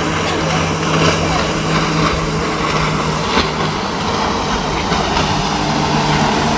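Boat engines running steadily with a low, even hum, and voices in the background.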